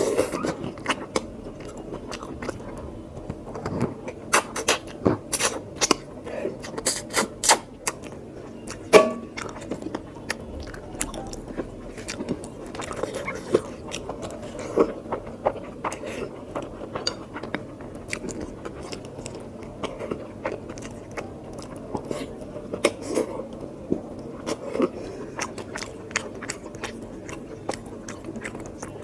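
Close-miked eating: a person chewing and biting through a meal of mutton curry and rice, with many short wet mouth clicks. The clicks come thickest in the first third, and one louder click comes about nine seconds in.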